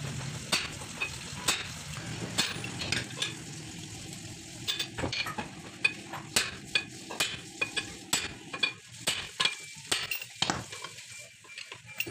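Hammer striking a steel drift rod held on an auto-rickshaw crankshaft assembly: a run of sharp metal-on-metal blows, a few spaced out at first, then coming two or three a second from about four seconds in.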